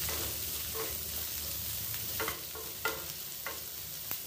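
Chopped onions frying in hot oil in a nonstick pan: a steady light sizzle, with a wooden spatula scraping the pan in about five short strokes as the onions are stirred.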